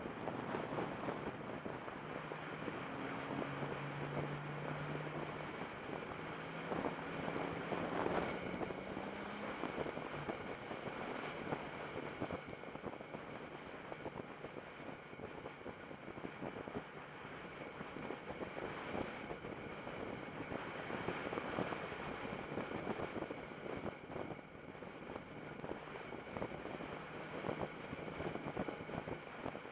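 Turbocharged car engine running with a steady high whine throughout, the weird turbo noise the owner is recording, over a rushing hiss; the engine note rises in pitch a few seconds in and then settles.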